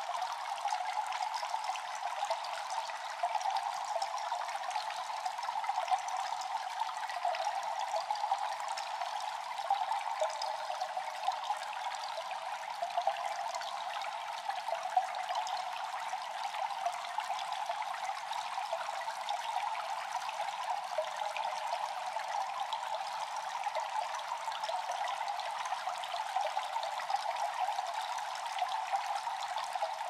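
Running water trickling and splashing steadily into water.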